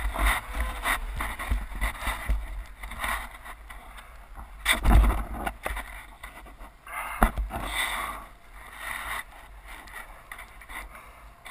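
Snowmobile engine running through deep powder, heard muffled through a helmet camera's housing, with wind buffeting the microphone in irregular gusts. The loudest surge comes about five seconds in, and it is quieter near the end.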